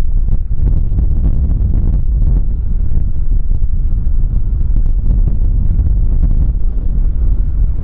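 Strong wind buffeting the microphone as a heavy, steady low rumble, with the jet engines of an airliner, a Skymark Boeing 737-800 on its takeoff run, running under it.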